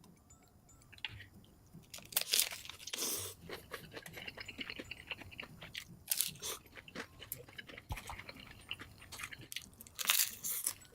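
Close-up crunchy chewing and biting of crisp food, played back at double speed: a few soft clicks, then from about two seconds in a dense run of sharp crunches with several loud bites.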